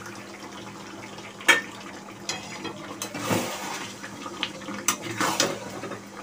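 Spice-paste water being poured into a kadai of cooking chicken and stirred in, with liquid sloshing and a few sharp clinks of a spoon against the pan.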